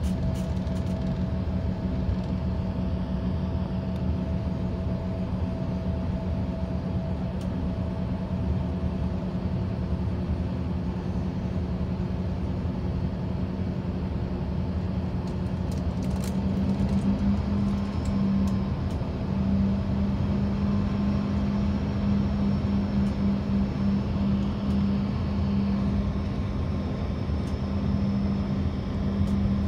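Cabin noise inside an Embraer ERJ-145 taxiing: the steady hum of its Rolls-Royce AE 3007 turbofans at low power. A low tone in the hum starts to pulse about halfway through.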